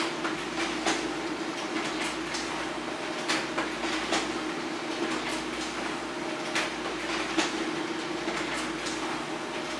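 HP LaserJet Pro M402d laser printer running a two-sided print job: a steady mechanical hum with a sharp click of paper feeding and flipping every second or so.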